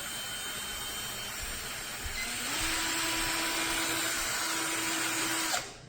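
Small cordless drill motor running, stepping up in speed about two seconds in, then stopping suddenly near the end.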